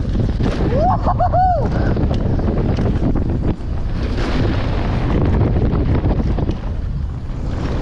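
Wind buffeting the camera microphone of a downhill mountain bike ridden fast over a rough dirt trail, with a steady rumble and constant rattling of the bike and tyres over stones. A short warbling squeal sounds about a second in.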